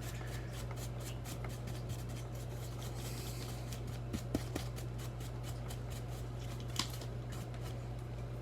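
Brush bristles swept over a headphone ear cup in quick short strokes: a rapid run of light ticks, with a few louder clicks from handling, over a steady low hum.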